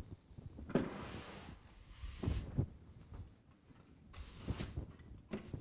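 A broom sweeping a floor in four separate strokes, each a brushing hiss with a low thump underneath.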